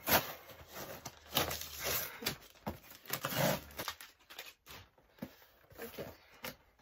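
A cardboard parcel being torn open by hand: irregular rips and rustling of tape and packaging.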